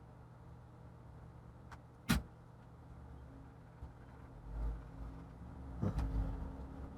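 Handling noises from working on a laptop keyboard and its ribbon-cable connector: one sharp click about two seconds in, then a few soft low bumps, over a steady low hum.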